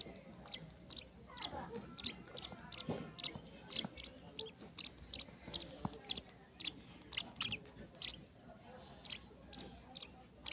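Young African lovebird chick making rapid, short, sharp clicking squeaks, a few a second and irregular, the sound of a chick begging during hand-feeding.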